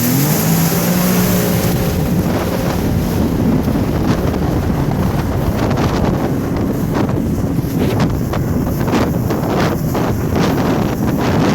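Jet ski engine rising in pitch as it speeds up, then running under heavy wind noise on the microphone, with irregular short hits from the middle on.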